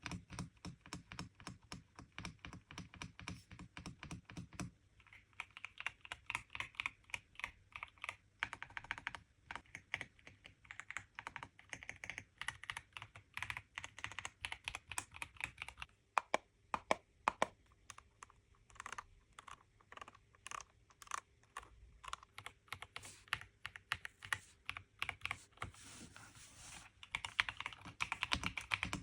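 Typing on a Royal Kludge R75 mechanical keyboard with silver switches: rapid, irregular keystroke clicks, a few strokes louder than the rest, getting busier near the end.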